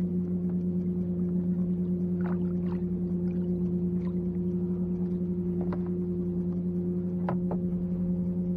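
A steady low hum runs throughout, with a few light splashes as a hand dips and swishes in the water beside a kayak.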